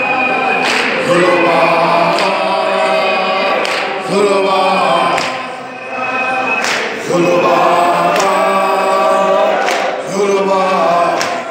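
A crowd singing a South African struggle song together a cappella, many voices in long held phrases with short breaks between them.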